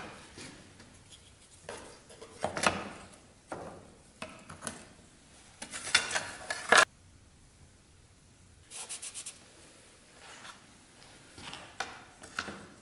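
Thin plywood pieces being handled on a plywood panel: sliding and rubbing against it in short scrapes, with a sharp wooden knock about seven seconds in and a quick run of small ticks soon after.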